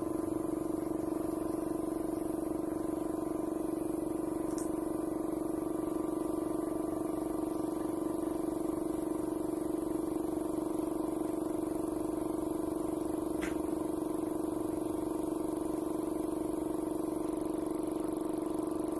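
A steady, unchanging hum with one strong low tone and fainter higher tones above it.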